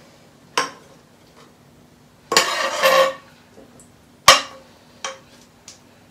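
Spatula scraping and knocking against a steel frying pan as a stir-fry is scraped out onto a plate. There is a knock, then a rough scrape of under a second, then one loud ringing clank and a couple of lighter taps.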